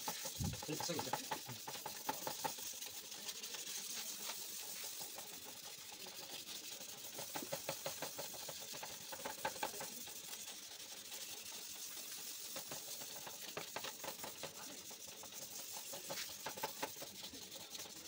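Wet 600-grit sandpaper rubbed back and forth by hand over a plastic motorcycle headlight lens, in steady rhythmic scratching strokes, sanding off the yellowed outer layer.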